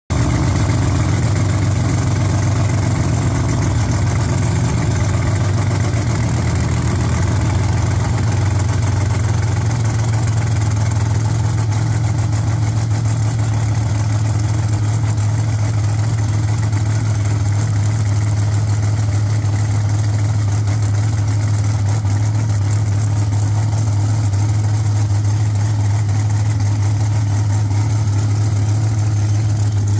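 Engine of an early Chevy II Nova drag car idling steadily: a loud, even, low drone with no change in revs.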